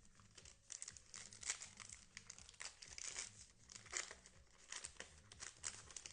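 Trading-card pack wrapper being torn open and crinkled by hand: a run of irregular, sharp crackles.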